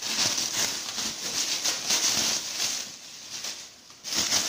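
Bubble wrap and plastic packaging crinkling and rustling as it is pulled off a hand-control lever. It eases off about three seconds in and picks up again near the end.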